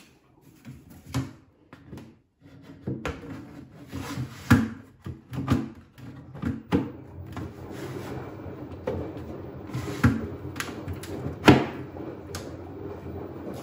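Plastic front door of a food dehydrator being handled and fitted over its trays: a string of sharp clicks and knocks, the loudest near the end, over a steady low hum.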